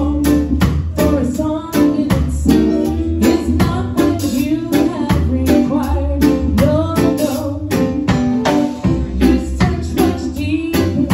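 Live band playing a reggae-style gospel song: a woman's lead vocal over keyboard, a drum kit keeping a steady beat, and guitar.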